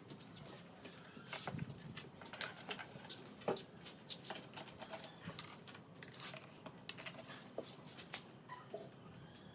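Scattered light clicks and taps at an irregular pace, with one sharper knock about three and a half seconds in.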